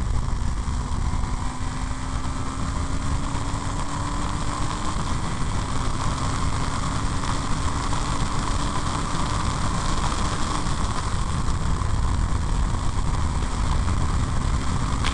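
Open-wheel single-seater race car driving, heard from the cockpit: a steady engine rumble mixed with a rush of wind noise, with a faint thin tone that slowly rises in pitch.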